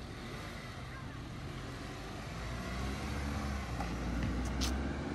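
Car engine running steadily, growing somewhat louder a little past halfway, with a short sharp tick near the end.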